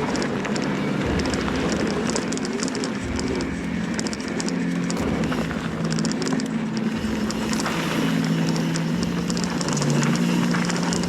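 Mountain bike riding down a dirt trail: continuous tyre and frame rumble and rattle. Under it runs a steady low hum that shifts pitch a few times, with clusters of quick high ticks.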